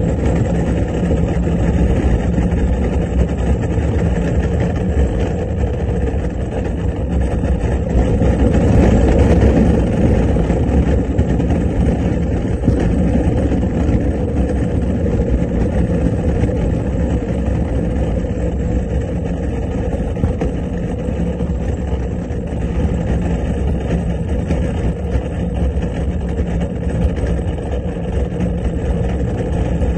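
Skyline Luge gravity cart rolling down the paved track: a steady rumble of its wheels on the surface, with no engine, swelling slightly about eight to ten seconds in.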